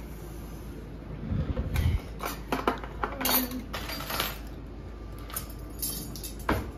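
Kitchen clatter: a few dull bumps, then a string of clinks and clicks as a metal spoon, a glass measuring cup and other kitchenware are handled and moved on the counter.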